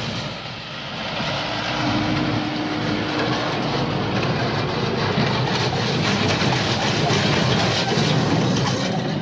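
Tractor pulling a hay baler in the field, a continuous loud mechanical clatter from the running machinery.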